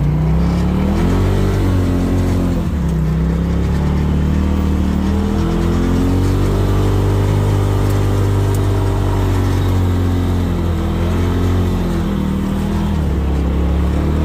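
Side-by-side off-road vehicle engine running under way, its pitch rising and falling several times as the throttle is opened and eased off, with a steady rush of motion noise underneath.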